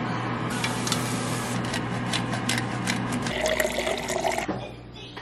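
A steady rushing hiss. About three seconds in it gives way to water from a refrigerator door dispenser running into a glass for about a second, over a low hum.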